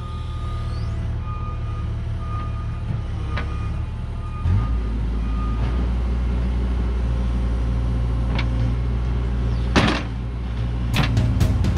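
Mini excavator's diesel engine running steadily, getting louder about four and a half seconds in. Several sharp knocks come near the end.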